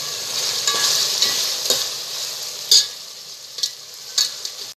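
Chicken mince and ginger-garlic paste sizzling in hot oil in a metal pot while a steel slotted spoon stirs it, knocking and scraping against the pot about five times, loudest a little past halfway. The sizzle dies down after about three seconds.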